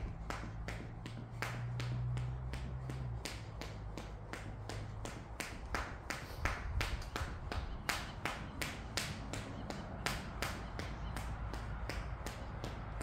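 Jump rope slapping the floor on every turn, a steady rhythm of about two to three sharp slaps a second.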